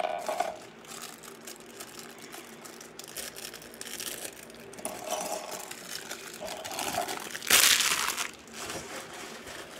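Plastic LEGO parts bag crinkling as it is handled, with small plastic pieces clicking, and a louder rustle of the bag near the end.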